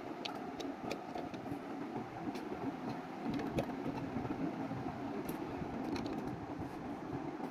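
Plastic building bricks clicking and tapping as small pieces are handled and pressed together: faint, scattered clicks a few times a second over a steady low hum.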